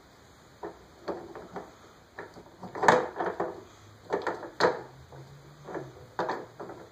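Irregular knocking and clattering of pieces being handled and pulled at in a child's tool box, with a sharper knock just before the halfway point and a few more in the second half.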